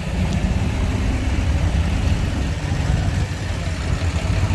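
An engine running steadily at idle.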